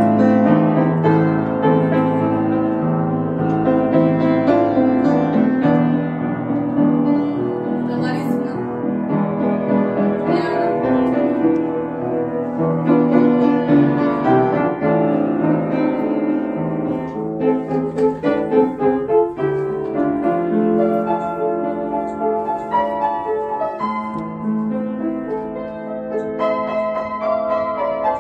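An upright piano being played: a piece of held chords with a melody above them.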